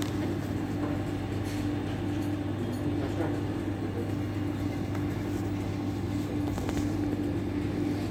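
Steady engine drone of a cargo truck heard from inside the cab, with a low hum and a constant tone that doesn't change.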